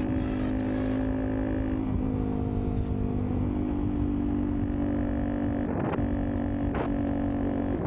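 Honda Monkey's single-cylinder 125 cc engine running while the bike is ridden, a steady engine note that steps slightly in pitch a few times.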